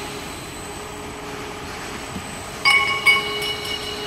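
Pipe welding turning roll running with a steady mechanical drone and a faint whine. About two and a half seconds in, two sharp metal clangs half a second apart, each ringing on for about a second.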